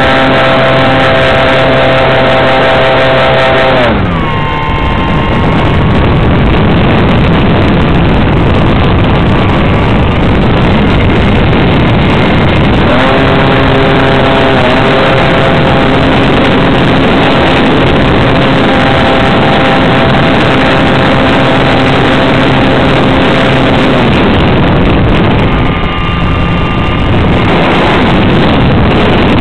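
Model Sopwith Camel's engine and propeller heard from a camera on the plane, with steady wind rush over the microphone. The engine note drops as the throttle comes back about four seconds in, picks up again a little before halfway, and falls away once more near the end before returning.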